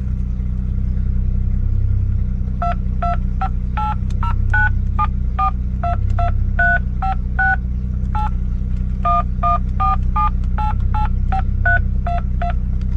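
Keypad tones from the BMW E38 750iL's built-in car phone, played through the car's speakers: a quick run of short two-tone beeps, about two or three a second, starting a few seconds in. A steady low engine hum runs underneath.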